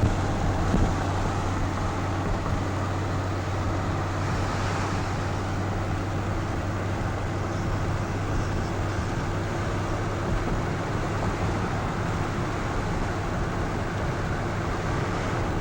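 Car engine and tyre noise heard from inside the cabin of a moving car: a steady drone with a constant low hum.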